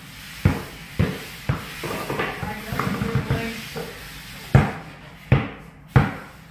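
Basketball dribbled on a ceramic tile floor: three quick bounces about half a second apart, a pause of about two seconds with quieter sounds, then three more bounces.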